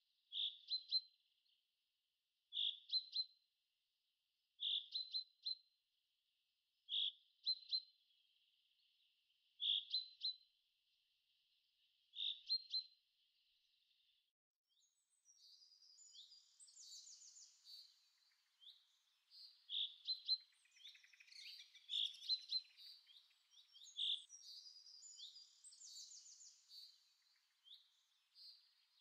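Birdsong. For the first half, one bird repeats a short chirping phrase about every two and a half seconds. From about halfway through, several birds chirp together, busier and higher.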